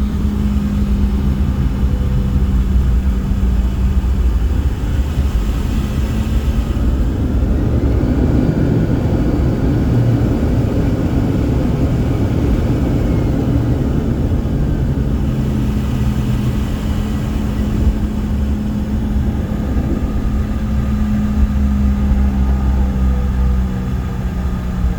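Jet airliner cabin noise: the engines and airframe give a steady hum over a low rumble, and the rumble swells for several seconds in the middle.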